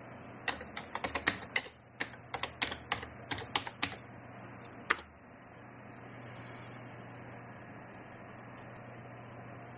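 Typing on a computer keyboard: about a dozen quick keystrokes spelling out a terminal command, then a single key press about a second later, the Enter key starting the compile. After it only a steady low hum remains.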